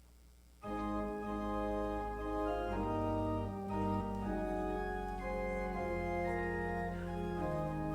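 An organ starts playing suddenly a little under a second in, holding sustained chords that move from one to the next every second or so.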